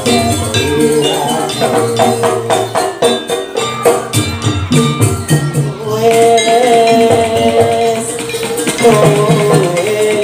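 Live jaranan ensemble music: a busy rhythm of percussion strokes, joined about halfway through by a held, wavering melody line.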